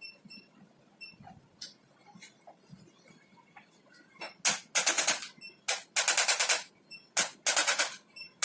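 Rapid mechanical clicking in several short bursts, each under a second, at roughly twenty clicks a second, starting about four seconds in after a few faint ticks.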